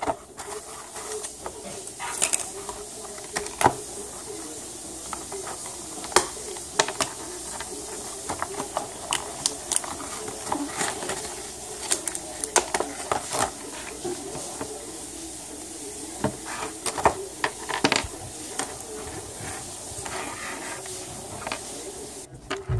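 Hard plastic earbud packaging being handled and pried apart as the earbuds and their cable are worked out of it: irregular clicks, knocks and crackles.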